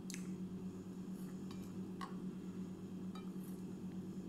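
Hand-eating sounds: a few soft clicks and a light clink as fingers work rice on a plate and the mouth chews. Under them runs a steady low hum.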